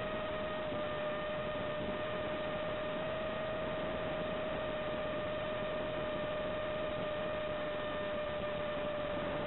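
Steady whine with constant hiss from a quadcopter's analog FPV video-link audio: one held mid-pitched tone with a fainter higher overtone, barely changing in pitch.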